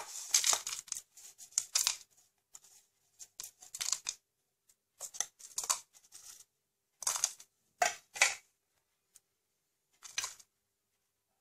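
Dry roasted dal, dried red chillies and ginger peel being scraped by hand off a steel plate and dropped into a steel mixer-grinder jar: irregular short bursts of scraping and rustling.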